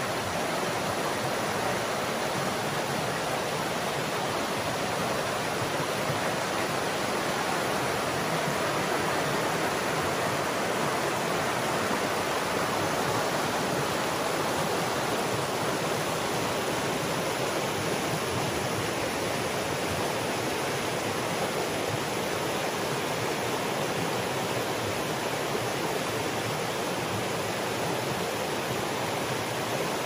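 Shallow rocky stream rushing over stones in small rapids: a steady, even rush of water.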